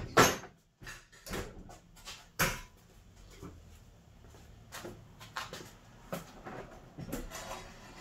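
A run of sharp knocks and bumps as a fridge is handled and shifted by hand, the loudest just after the start and two more within the next few seconds, then lighter clicks and clatter.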